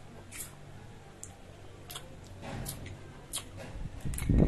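Eating a blue swimmer crab: small sharp clicks and cracks of crab shell at intervals, with sucking at a crab leg. A louder, low handling noise comes near the end as the whole crab is picked up over the plate.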